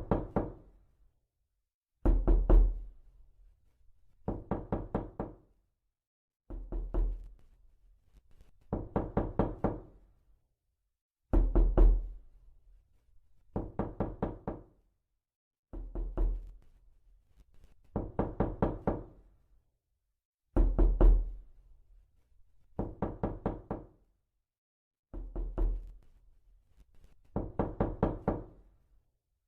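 Knocking on a door in quick bursts of several fast raps, one burst about every two seconds, with silence between bursts.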